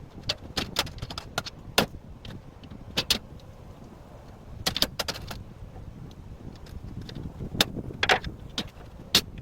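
Light metal clinks and knocks at irregular intervals, a dozen or so, over a low rumble.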